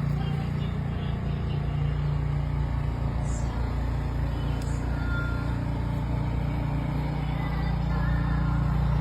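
Steady low engine rumble with a constant hum, holding the same pitch throughout.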